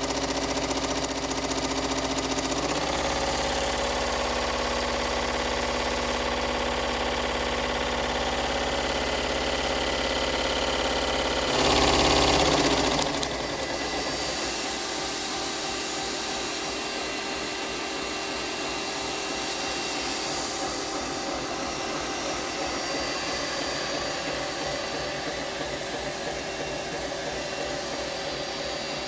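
Homemade wooden scroll saw running steadily, its motor driven by a variable-frequency drive. The running note changes about three seconds in. A loud rushing burst lasts about a second around twelve seconds in, after which the saw runs on at a higher drive setting.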